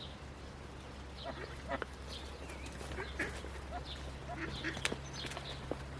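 Newly hatched Indian Runner ducklings peeping in many short, scattered high calls, with a few lower calls mixed in, over a steady low hum.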